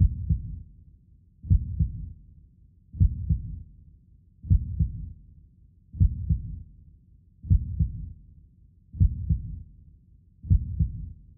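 Heartbeat sound effect: slow, steady lub-dub double thumps, low and dull, one pair about every second and a half.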